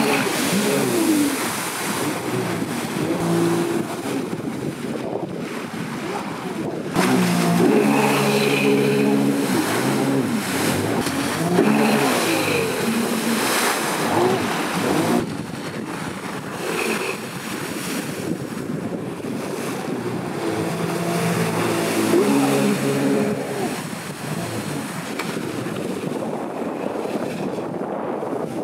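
Sea-Doo Spark jet ski's three-cylinder Rotax 900 ACE engine revving up and down through hard powerslide turns, over the rush of the jet and its spray. The pitch rises and falls again and again. The sound gets louder about seven seconds in and eases back about halfway through.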